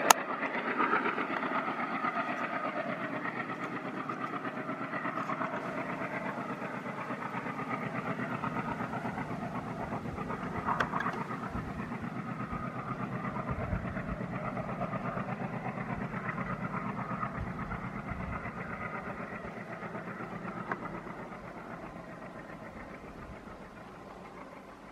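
Passenger train running away on the rails, the rumble of its coaches' wheels fading steadily as it recedes.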